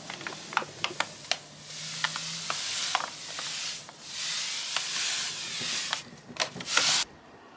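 Granulated sugar poured from a paper bag into a large steel pot of saffron rice pudding: a hiss of running sugar grains in two long pours, with the paper bag crackling between them, and a last burst of pouring that cuts off suddenly near the end.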